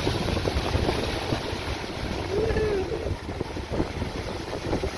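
Strong wind buffeting the microphone over the rush of breaking waves and churning wake at a sailing catamaran's stern, with a short faint whine near the middle.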